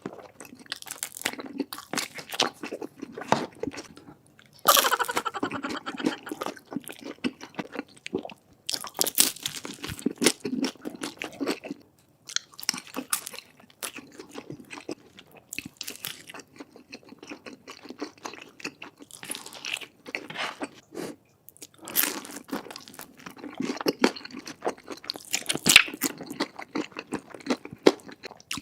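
Close-miked eating: a person taking big bites and chewing crunchy food, with many irregular crunches and softer chewing between them.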